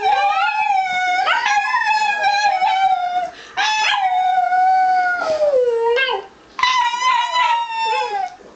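A dog howling in long, wavering howls, with a person howling along, in three drawn-out stretches broken by short pauses.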